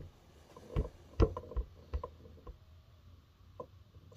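A handful of short, sharp metal knocks and clicks as the rebuilt crankshaft is worked down into the aluminium crankcase half of a Polaris 700 two-stroke engine, seating its crank seals in their grooves.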